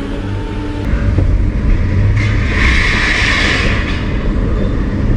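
Engine and road rumble of a loaded Ford Ranger pickup driving, with a hissing noise for about a second and a half in the middle.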